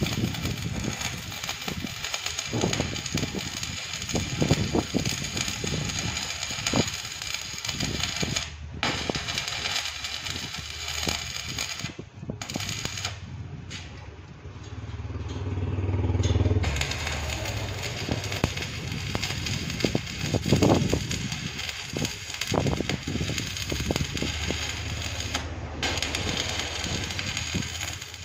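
Stick (shielded metal arc) welding on steel bars: the electrode's arc crackles and sizzles steadily, cutting out briefly a few times as the welder stops and restarts. A low hum swells for a couple of seconds about halfway through.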